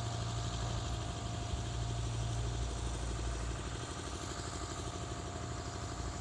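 A vehicle engine idling with a steady low hum that drops back a little about two and a half seconds in.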